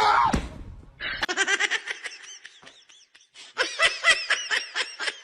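High-pitched laughter in rapid short bursts, about four or five a second, with a brief pause in the middle.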